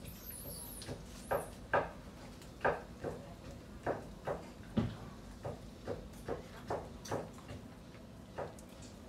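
A macaque foraging on a wall makes irregular sharp clicks and taps, about one or two a second, as it handles and picks at food. A faint high chirp sounds in the first second.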